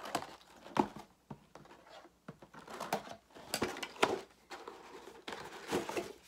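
Scissors cutting through packing tape on a cardboard gift box, then tape tearing and paper crinkling as the box is pulled open: irregular sharp clicks and scratchy rustles.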